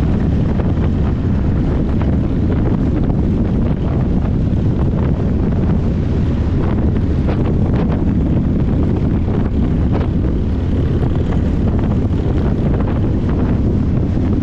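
Heavy wind buffeting the microphone over a steady low rumble, as from a camera on a moving vehicle.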